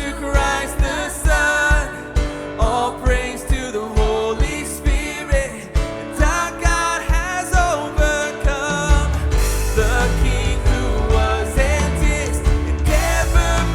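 Live worship band playing an instrumental passage of a song, with drums keeping a steady beat under wavering melodic lines from guitar, synth and piano. About nine seconds in, the bass and low end swell and the band plays fuller.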